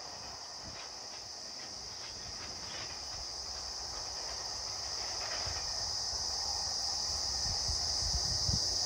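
Steady high-pitched buzzing of insects, growing louder toward the end, over the faint rumble and clatter of a train moving away.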